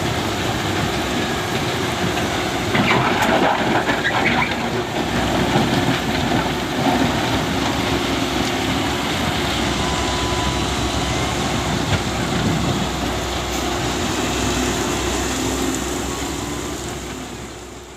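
Diesel engines of heavy earthmoving machinery running at work, a steady rumble and rattle. A louder, rougher stretch comes about three seconds in, and the sound fades out at the end.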